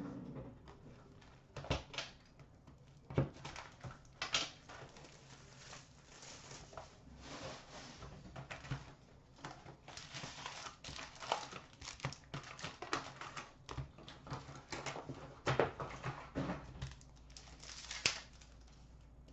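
Hands opening a cardboard box of trading-card packs and handling the packs, with crinkling pack wrappers and sharp clicks and taps as packs are set down on a glass counter. Near the end a pack wrapper crackles loudly as it starts to be torn open.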